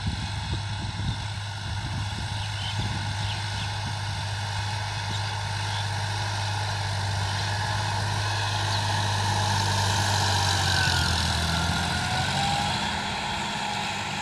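Sonalika tractor's diesel engine running steadily as it pulls a rotary tiller through the field, growing louder as it draws near, with its note shifting near the end.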